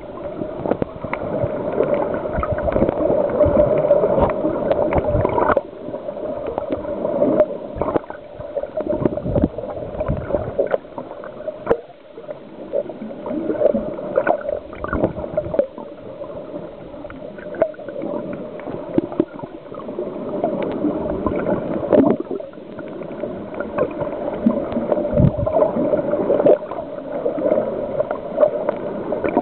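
Muffled underwater gurgling and bubbling that swells and fades every few seconds, with scattered short clicks and knocks.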